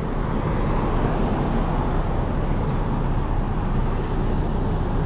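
Road traffic passing on a busy street: a steady wash of car and truck engine and tyre noise.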